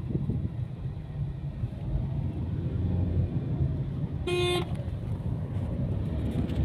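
Car running with a steady low rumble, and one short car-horn toot about four seconds in.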